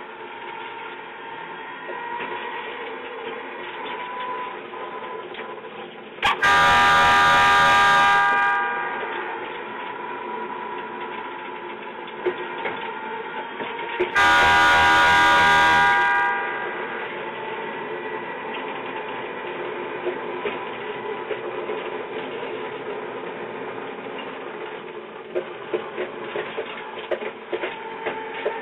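Miniature ride-on train running with a steady motor whine, sounding its horn twice, each blast about two seconds long and some eight seconds apart. A few sharp clicks come near the end.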